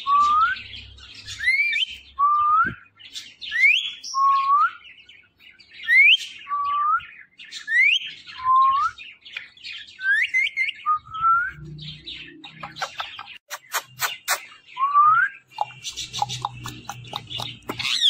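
Rose-ringed (Indian ringneck) parakeet whistling: repeated pairs of rising whistles, a high upward sweep followed by a lower one, about every two seconds. In the later part they give way to rapid clicking and harsh chatter, with one more whistle among it.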